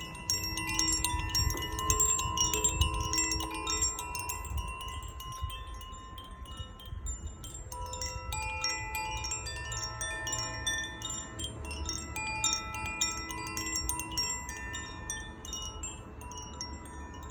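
Koshi Aria chime being swung and rung. Its tuned rods are struck again and again, so many clear, sustained notes overlap and blend, over a low rumble.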